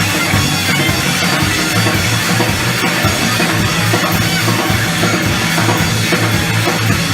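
Live rock band playing loudly: drum kit over a pulsing bass line, with a dense wash of guitars and cymbals above.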